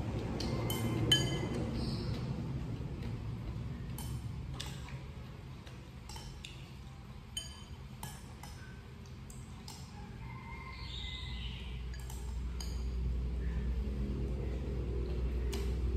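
Wooden chopsticks clinking against ceramic bowls while noodles are eaten: a string of light, irregular clicks.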